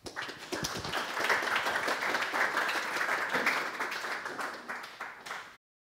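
Audience applauding, a dense patter of many hands clapping. It thins out over the last second or two and cuts off suddenly near the end.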